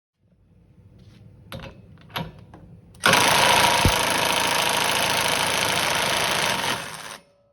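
Cordless drill driving a homemade impact wrench adapter to loosen a nut torqued to 120 Nm: after a few faint clicks, it runs loudly for about four seconds and then stops. This attempt shakes the drill chuck loose.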